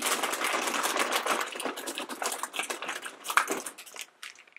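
A hand rummaging through a plastic bin full of foil and plastic blind-bag packets: dense, continuous crinkling and rustling that thins out after about four seconds as one packet is drawn out.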